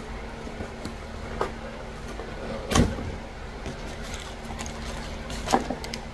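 Brown paper and cardboard packaging being handled and pulled open by hand: scattered rustles and crinkles, with a louder thump about three seconds in and another sharp crinkle near the end, over a steady low hum.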